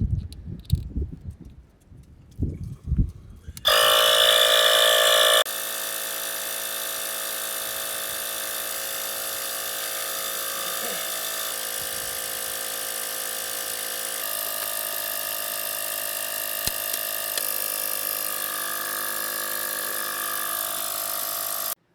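A few knocks of hand tools, then a small electric motor starts up, most likely a portable air compressor re-inflating the flat tire after the valve stem repair. It runs with a steady drone, louder for its first couple of seconds, then level until it cuts off just before the end.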